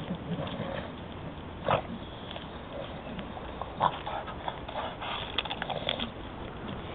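A Staffordshire bull terrier playing at a log, with its close breathing and short noises as it noses and mouths the wood. Two brief louder sounds come about two and four seconds in, and a run of short clicks near the end.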